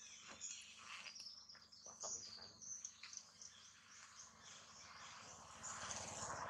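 Faint outdoor ambience of small birds chirping and insects calling, in many quick, high chirps. A soft rustling swell comes near the end.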